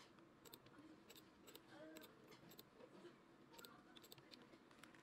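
Near silence: room tone with scattered faint, crisp clicks and a faint murmur of distant voices.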